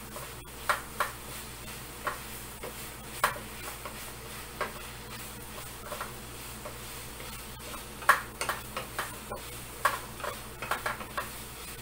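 A cooking utensil stirring sliced paprika (bell pepper) in a frying pan over a steady light sizzle, with irregular taps and scrapes against the pan that come in quicker clusters near the end.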